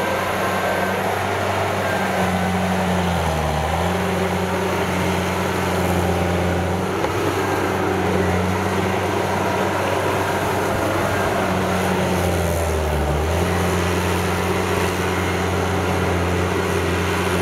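Diesel engine of a Kubota DC70 tracked harvester, converted to a rotary tiller, running steadily under load as it churns a flooded rice paddy. The engine note dips briefly twice, about three and a half seconds in and again around thirteen seconds.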